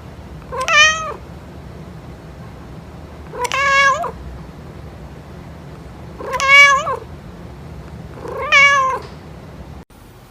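Domestic cat meowing four times, each meow about half a second long and spaced a few seconds apart, over a faint steady low hum.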